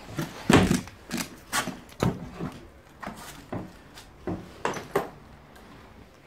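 Footsteps and knocks on bare wooden floorboards, about two a second, as people step over clutter in an empty room.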